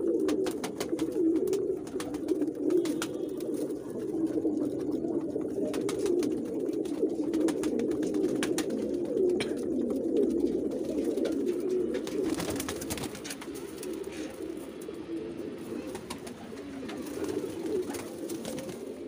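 A flock of domestic high-flyer pigeons cooing together in a continuous low murmur, with many small sharp taps and clicks scattered through it.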